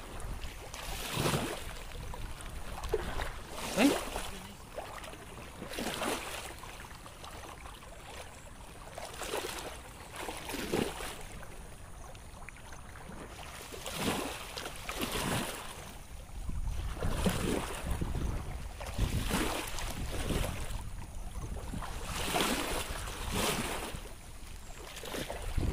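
Shallow muddy stream water splashing and sloshing in a series of short swishes about every one to two seconds as someone moves through it. Wind rumbles on the microphone in the second half.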